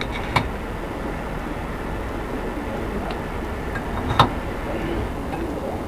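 Kitchen scissors snipping through fried pempek on a ceramic plate: two sharp clicks, about a third of a second in and just after four seconds, with a fainter one between, over a steady low hum.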